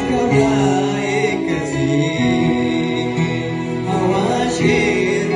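Kunama gospel song (mezmur) with a backing track of held chords, and a man's voice singing into a microphone over it about a second in and again near the end.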